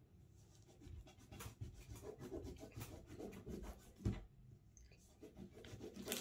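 Quick back-and-forth strokes of a colouring tool scribbling on paper on a tabletop, with a dull knock about four seconds in.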